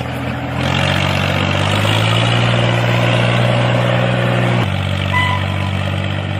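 Tractor engine running steadily with a low hum. Its pitch steps up about two seconds in and drops back near five seconds in.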